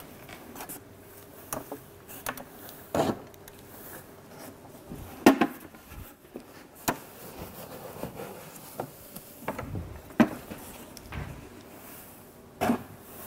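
Sawdust being tipped from a plastic bucket into a plywood box, with a dry rustle and several scattered knocks and clunks of handling. The loudest knock comes about five seconds in.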